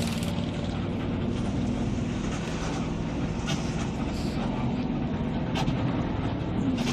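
A long-distance bus's engine running under way with road noise, a steady low drone with a few light clicks or rattles about halfway through and later.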